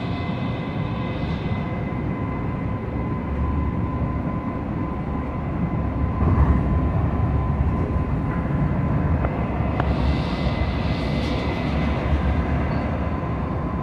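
Interior of a SacRT light rail car in motion: the rumble of the wheels on the rails with a steady hum from the car, the rumble growing louder about six seconds in.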